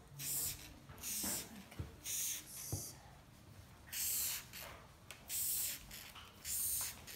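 Perfume-style bulb atomizer and trigger spray bottle spraying paint in short hissing puffs, about seven in a row, with a few soft knocks in between.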